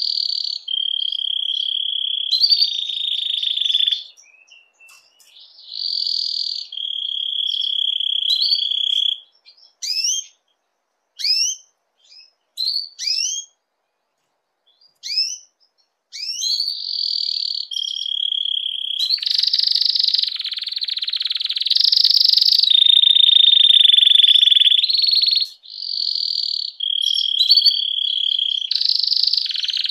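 Domestic canary in breeding condition singing: long, rapid rattling trills and rolls, broken in the middle by a run of short rising chirps, then trilling on without a break.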